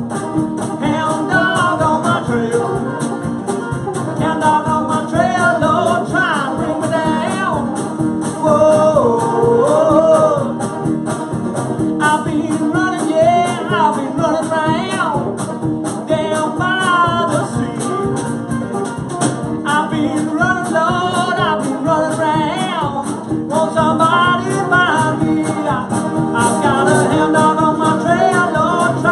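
A live country band playing: a man singing lead over strummed acoustic guitars and an electric guitar, with a steady beat.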